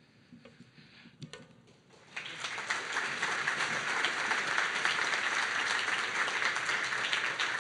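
Audience applauding, breaking out about two seconds in after a moment of near quiet, then holding steady.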